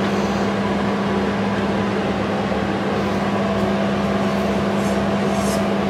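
A steady machine hum: one low droning tone under an even rushing noise, as from an electric motor or fan running. A faint higher tone joins about three seconds in.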